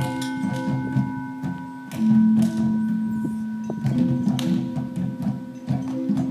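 A children's ensemble playing outdoor percussion instruments struck with mallets: tuned notes ring on over a quick, steady run of hollow low strikes, with one louder note about two seconds in.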